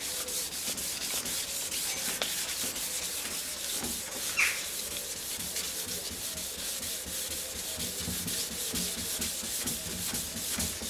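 1500-grade wet and dry paper wrapped on a foam sanding block, rubbed back and forth by hand with light, repeated strokes over the wet clearcoat of a Mazda MX5 boot lid, cutting back orange peel in the lacquer. A brief squeak about four and a half seconds in.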